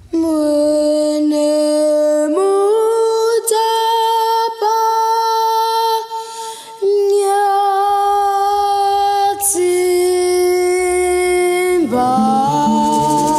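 Children's choir singing a slow line of long held notes, each note several seconds long and stepping to a new pitch. A low accompaniment comes in about two-thirds of the way through, and a steady rhythmic beat starts near the end.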